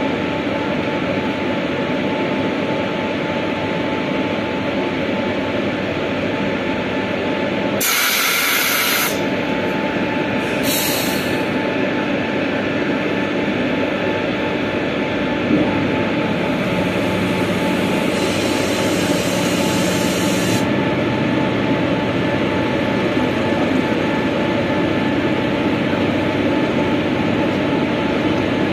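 Steady machine hum of a WAG-7 electric locomotive standing at the coupling. Two short bursts of air hiss about eight and eleven seconds in, and a longer, fainter hiss a few seconds later, as the air-brake hoses between locomotive and wagon are handled.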